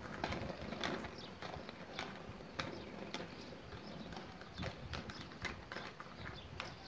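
Inline skates rolling over a tiled paving path: a run of sharp clicks, about one every half second, as the wheels cross the tile joints.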